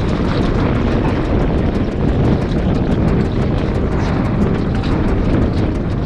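Steady, loud wind rumble buffeting the microphone over choppy sea.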